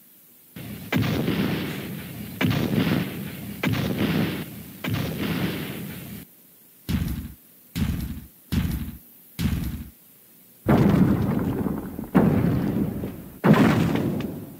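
Loud booming thuds from cartoon sound effects: four long ones about a second each, then four short ones a little under a second apart, then three more long ones near the end.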